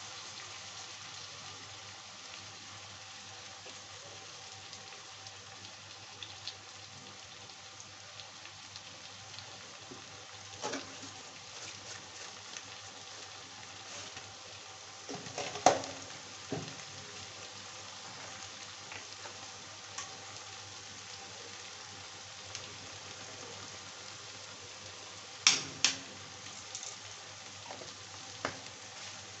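Sliced onions frying in oil in a kadhai, with a steady sizzle. A metal spatula knocks and scrapes against the pan a few times, loudest about halfway through and again twice near the end.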